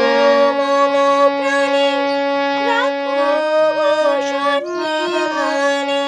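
Harmonium playing a slow melody, its reed notes held and changing every second or so over a sustained lower note.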